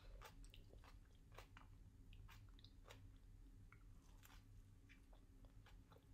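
Faint chewing and biting: irregular small clicks and crunches from a mouthful of kimchi and a bite of seaweed-wrapped triangle kimbap, over a low steady hum.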